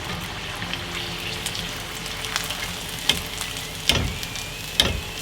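Food sizzling as it fries in a pan, a steady crackling hiss, with a few sharp knocks in the second half.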